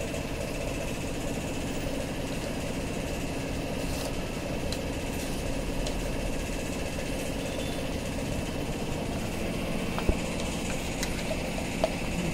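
Steady mechanical drone of a running motor or engine, even in level throughout, with a few short clicks near the end.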